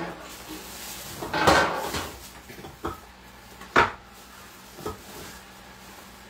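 Metal baking pan and knife clattering on a kitchen counter while chicken is cut: a longer scrape a little over a second in, then a few sharp knocks, the loudest nearly four seconds in.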